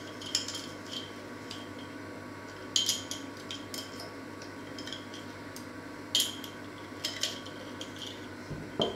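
A metal spoon clinking against a small glass jar in scattered, irregular taps, each with a short ring. A duller knock comes near the end.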